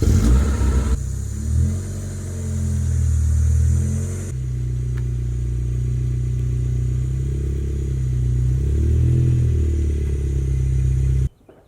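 1999 Mazda MX-5 Miata's inline four-cylinder engine running at low revs after a start, surging in the first second, then running on with its pitch rising and falling a little as the car is moved. It cuts off abruptly near the end.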